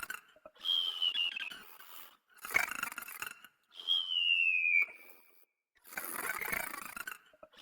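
Cartoon snoring: a rasping snore on the in-breath, then a whistle that falls in pitch on the out-breath, repeating about every three seconds.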